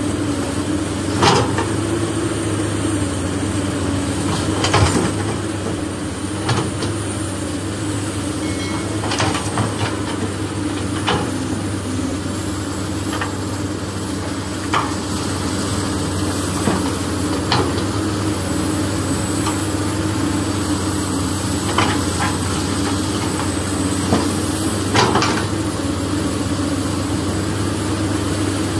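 Soil being loaded into a yellow plastic toy dump truck's bed: a steady mechanical hum throughout, with about eight short knocks a few seconds apart as clods of earth drop in and strike the plastic.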